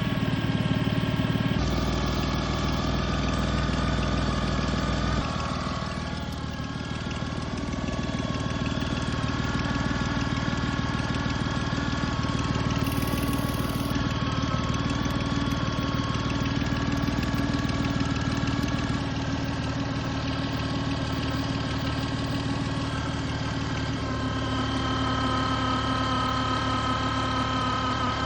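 Jeep engine idling steadily, with several steady high whining tones over its low running sound.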